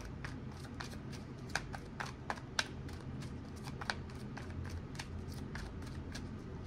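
A tarot deck being shuffled by hand, overhand style, with cards sliding and slapping together in soft, irregular clicks about four times a second.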